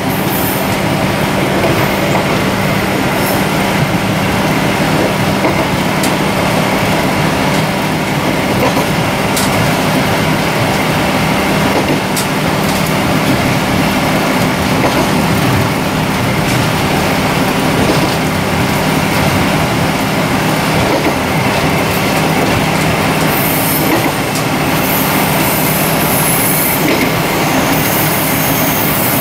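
Taiwan Railways DR2700 diesel multiple unit running at speed: a steady drone of the diesel engine under wheel-and-rail noise, with a few sharp clicks, heard from the driving cab.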